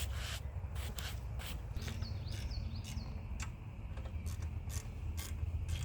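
Scattered light clicks and rubbing sounds, with a short repeated bird call about two seconds in, over a steady low rumble.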